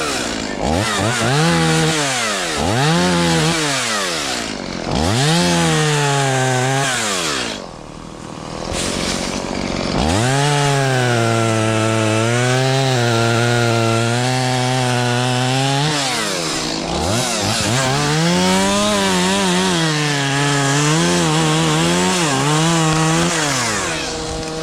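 A small engine revving up and dropping back several times, then running at a fairly steady, slightly wavering speed in two longer stretches.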